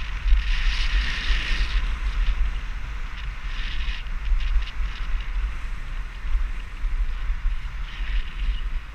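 Wind buffeting a GoPro action camera's microphone during a fast run down a groomed ski slope, gusting low and steady. Over it come hissing scrapes of edges on packed snow, loudest about a second in and again briefly near the middle and near the end.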